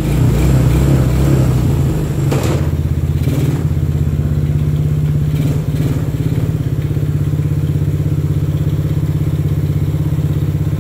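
TaoTao ATV's small engine idling steadily, somewhat unevenly in the first couple of seconds, with a light knock about two seconds in.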